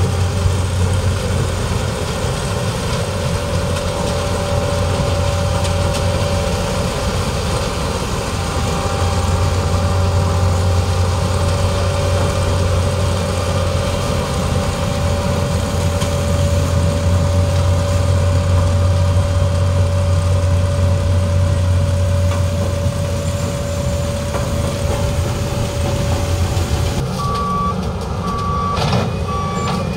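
Diesel engines of a New Holland 3630 tractor and a Case sugarcane harvester running steadily under load, a loud low drone with a steady hum above it. Near the end the drone drops away and three short high beeps sound.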